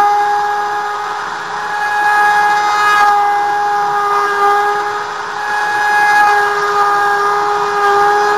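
Hobby-class CNC router spindle milling MDF: a steady high whine with the rasp of the cutter in the board, swelling louder and easing off every few seconds.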